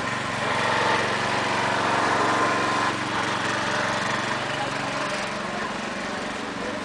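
A small engine running steadily at one speed, with voices in the background.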